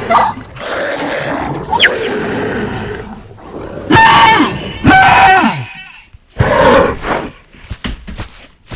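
Dinosaur sound effects: growls and roars, with two loud high-pitched calls about four and five seconds in and another just before seven seconds, then a run of sharp clicks near the end.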